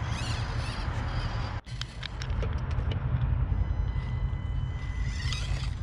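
A 1/24-scale RC crawler's small electric motor whining faintly while its tyres tick and click over the course, under a steady low rumble that is the loudest sound.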